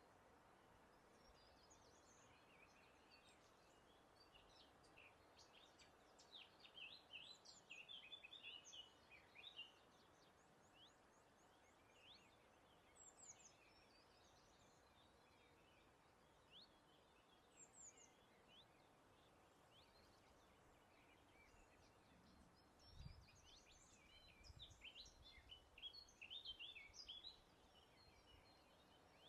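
Faint birdsong from several birds: short chirps and quick trills, busiest in one spell about a quarter of the way in and another near the end, over a faint steady hiss of breeze. A couple of soft low thumps come just before the second spell.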